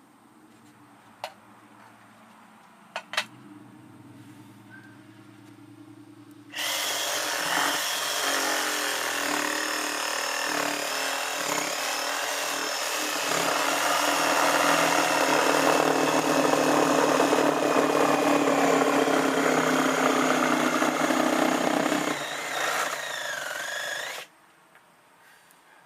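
A handheld electric power tool starts suddenly about six seconds in and runs under load for roughly seventeen seconds, then cuts off. It is preceded by a few sharp clicks.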